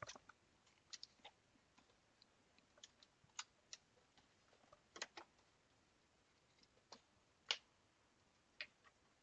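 Faint, scattered clicks and taps at irregular intervals, the sharpest about seven and a half seconds in, from parts and connectors being handled on a repair bench.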